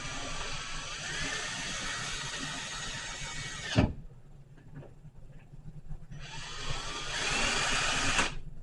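Power drill driving screws into wall anchors, in two runs: the motor whines, its pitch rising about a second in, and stops abruptly about four seconds in. It starts again about two seconds later and stops just before the end.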